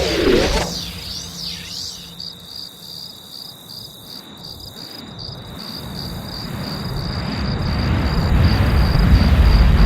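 Cricket chirping: a steady, rapidly pulsing high trill. A low rumble swells up under it over the second half.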